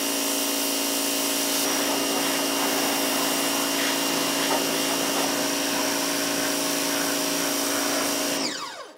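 Pressure washer running steadily, its motor humming under the hiss of the water jet. Just before the end it winds down with a falling pitch and stops.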